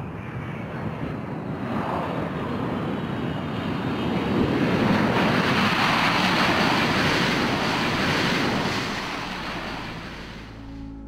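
Boeing C-17 Globemaster III's four turbofan jet engines running on a dirt runway, a rushing jet noise. It swells to its loudest about four to nine seconds in, then fades near the end.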